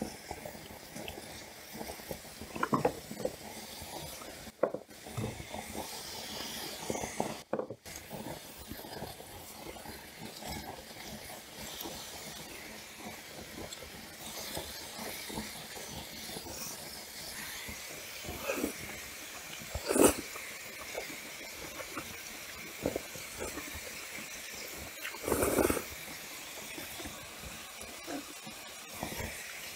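Eating sounds of bibim naengmyeon and grilled brisket: chewing and slurping of cold noodles, as scattered short noises over a steady hiss, the longest about 25 seconds in.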